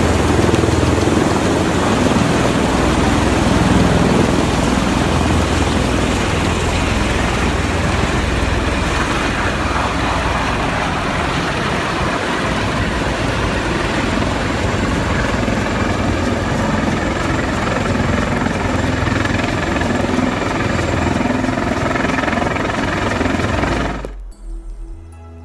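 MV-22 Osprey tiltrotor's proprotors and engines running loud and steady as it hovers and flies overhead. The noise cuts off abruptly about a second and a half before the end, leaving a much quieter sound.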